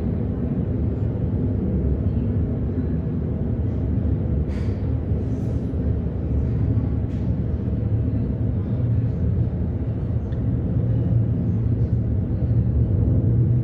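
Low, steady rumble of distant jet engines, growing a little louder near the end, with a few faint clicks.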